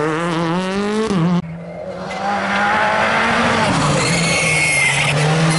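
Two rally cars one after the other. The first accelerates hard out of a corner with its engine revs climbing, cut off suddenly about a second and a half in. The second car's engine then revs up as it comes on at speed, with a high tyre squeal partway through.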